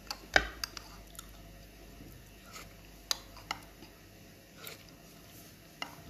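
A person chewing food close to the microphone, with scattered sharp clicks and taps. A thump about half a second in is the loudest sound.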